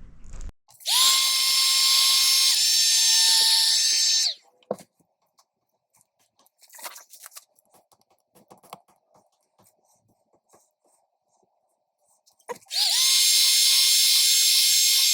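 Power drill run in two bursts of about three seconds each, spinning up to a steady whine; the first drops slightly in pitch partway through. Faint handling clicks fill the gap between them.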